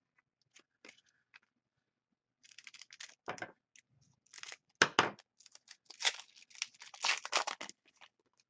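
A Crown Royale hockey card pack wrapper being torn open and crinkled: a few small clicks, then about five seconds of tearing and rustling, with a sharp crack about halfway through.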